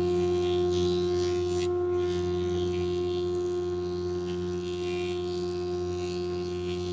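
An electric power tool's motor running at a steady speed, giving an even hum with a faint shifting hiss above it.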